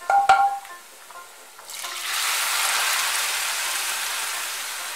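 A metal clank, then boiled masoor dal pours into a kadai of hot mustard oil and fried onions and sets off a loud, steady sizzle that slowly fades.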